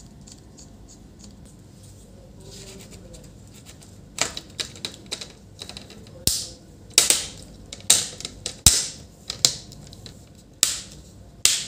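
Plastic display bezel of an HP ProBook 440 G4 laptop being pressed onto the screen lid by hand, its clips snapping into place. From about four seconds in there is a string of a dozen or so sharp clicks, loudest in the second half.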